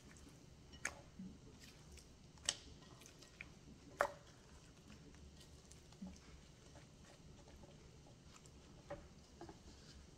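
Hands patting and rubbing seasoning mix onto raw, olive-oiled pork chops: faint soft squishes with scattered light ticks at irregular intervals, the sharpest about two and a half and four seconds in.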